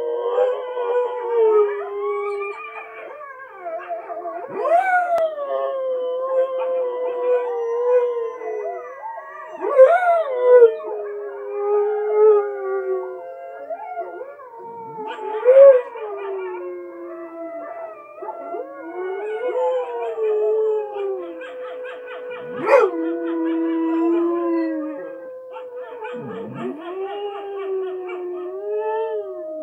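A husky howling along with a pack of wolves howling on a television: several long howls rising and falling at once at different pitches.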